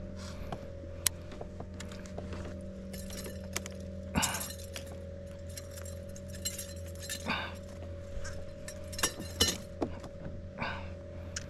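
A steady low motor hum with irregular short clinks and rattles over it, the loudest clusters about four seconds in, near seven seconds and around nine seconds.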